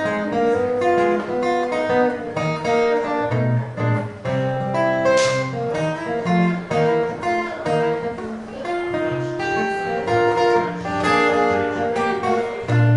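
Solo acoustic guitar playing an instrumental break in a blues tune: picked melody notes over a moving bass line.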